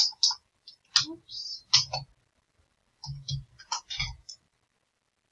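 Computer keyboard keys clicking in short quick bursts of keystrokes as code is typed, with pauses of about a second between the bursts.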